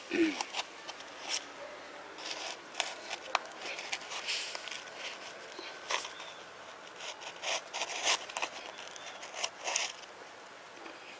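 Rigid plastic seedling pot, a cut-down drink bottle, crackling and scraping in short irregular clicks as it is squeezed and worked by hand to free the seedling and its soil from inside.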